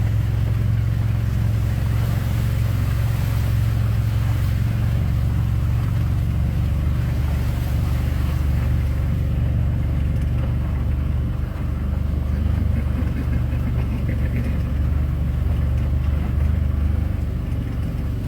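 A vehicle's engine running steadily with a low drone as it drives along a rough woodland track, heard from on board.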